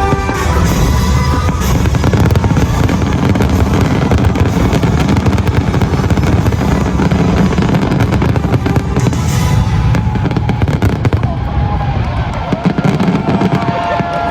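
Aerial fireworks going off in a dense, continuous barrage of booms and crackles, with music playing along.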